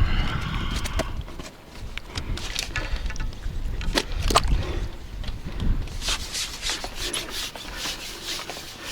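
Rubbing and scraping with scattered sharp clicks, over low wind buffeting on the microphone in the first second or so; the scraping thickens about six seconds in.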